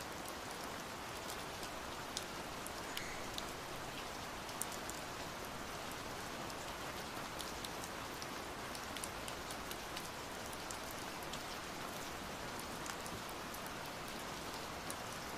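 Steady light rain: a soft, even hiss sprinkled with scattered droplet ticks.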